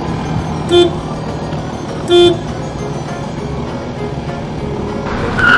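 Cartoon vehicle horn sound effect: two short toots about a second and a half apart, over background music and a steady low engine hum. A rushing noise swells near the end.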